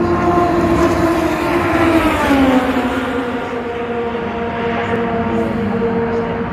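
Super Formula single-seater's turbocharged 2.0-litre four-cylinder engine at speed passing down the straight, a loud high-pitched drone. Its pitch falls about two seconds in, then holds steady, and drops again near the end.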